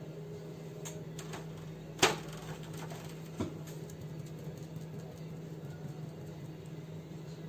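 Soft taps of a paint sponge dabbing onto card over paper towel, with a sharp knock about two seconds in and a smaller one about a second and a half later, over a steady low hum.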